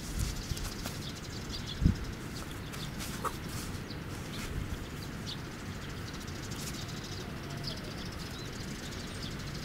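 Short faint bird chirps over a steady rumble of wind on the microphone, with a single thump about two seconds in.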